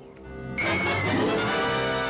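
Orchestral film-score music swells in about half a second in and holds loud.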